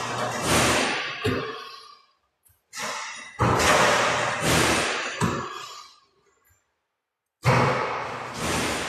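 Basketball shooting-drill sounds, three times about four seconds apart: each a sudden rush of noise that dies away over two to three seconds, with a thud or two. Each is a made shot dropping through the net into the shooting machine's return net and being passed back out.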